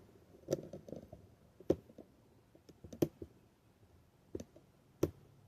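Scattered light clicks and taps of small metal parts and tools being handled while assembling a bicycle, about seven at irregular intervals.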